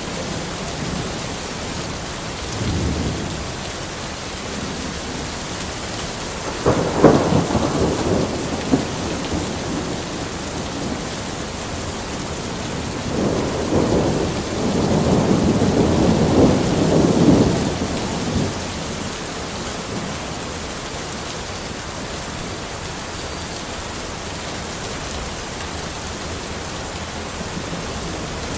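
Steady rain falling on a forest, with thunder rumbling three times: a short low roll a few seconds in, a sharper crack and roll around seven seconds, and a long rolling peal in the middle.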